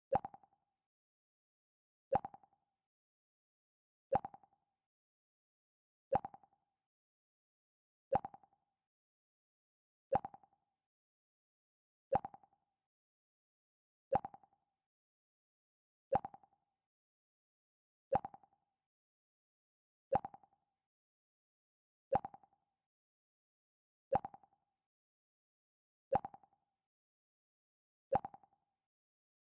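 The Mac OS X 'Pluck' sound effect repeating about every two seconds: a short plucked tone that dies away quickly, fifteen times over.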